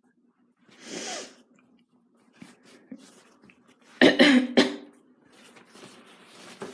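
A woman coughing: a single breathy huff about a second in, then a quick run of three loud coughs about four seconds in. Her cough is described as severe.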